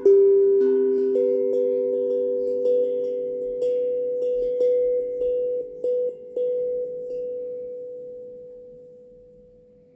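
Steel tongue drum (glucophone) playing a slow melody of struck, ringing metal notes, roughly two a second. The last strikes come about seven seconds in, and the final notes ring on and fade away as the piece ends.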